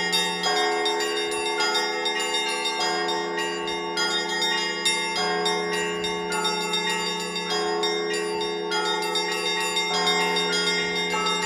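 Russian Orthodox church bells rung by hand by a bell ringer: quick, rhythmic strikes on the smaller bells over a deep bell ringing beneath them, all the tones overlapping in a continuous peal.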